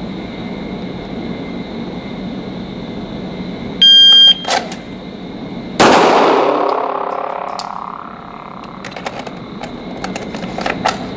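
Electronic shot timer giving its half-second start beep, then about two seconds later a single 9mm shot from a Glock 17 pistol that rings and dies away over about two seconds in the indoor range. A few small clicks follow as the pistol is reholstered.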